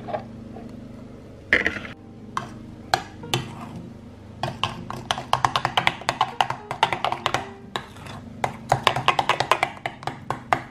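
Metal whisk beating Greek yogurt into an egg-and-sugar mixture in a glass bowl, clicking quickly against the glass from about four and a half seconds in, with a few separate knocks before that.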